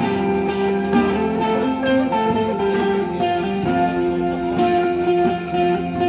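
A small live ensemble of plucked string instruments, guitar and a traditional Bornean long-necked lute among them, playing a steady melodic tune.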